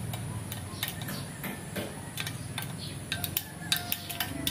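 Metal scissor tip clicking and scraping against the screw and fitting of a non-stick frying pan's handle, used as a makeshift screwdriver. The ticks come irregularly, several a second, over a low steady hum.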